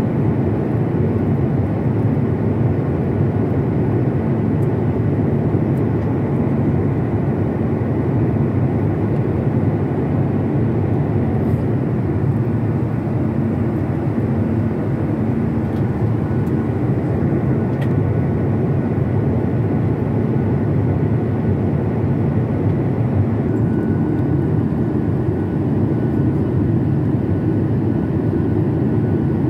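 Steady low roar of jet engines and airflow heard inside the cabin of a Boeing 737 airliner during its descent, with a faint high whine above it.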